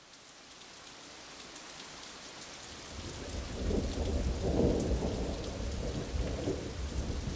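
Steady rain fading in, with a low rumble of thunder building about three seconds in and swelling near the middle.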